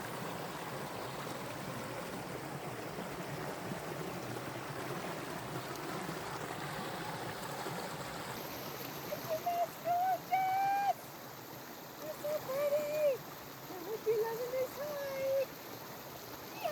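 Forest creek water rushing and splashing over rocks as a steady hiss. In the second half, several short pitched, wavering calls sound over the water.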